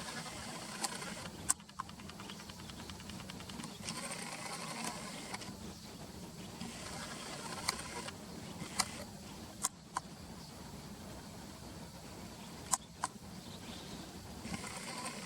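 Outdoor ambience: a steady low hum of distant traffic, a high insect buzz that comes and goes, and about eight short, sharp chirps or clicks scattered through.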